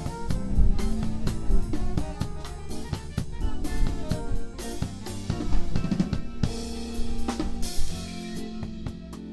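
Jazz drum kit played busily: a quick, irregular run of snare, bass drum and cymbal strokes, with the band's held notes sounding underneath.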